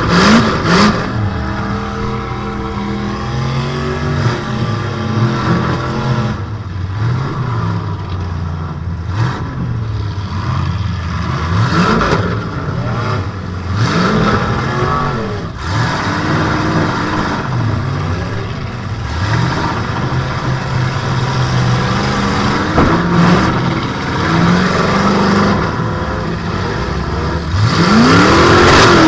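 Demolition derby car's engine revving up and falling back again and again, heard from inside its stripped cabin, with the loudest surge near the end.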